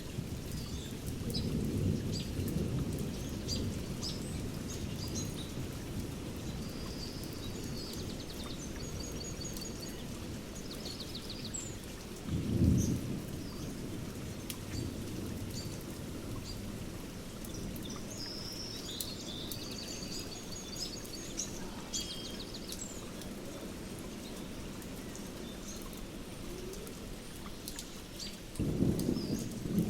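Thunderstorm-and-birdsong soundscape recording: steady rain with thunder rumbling a few seconds in, a short sharp roll about twelve seconds in and a louder one starting near the end, while small birds chirp and sing high above it.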